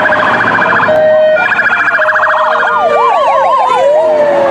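Loud police car siren with several siren tones layered: a fast warbling yelp, then up-and-down sweeps about three a second in the second half.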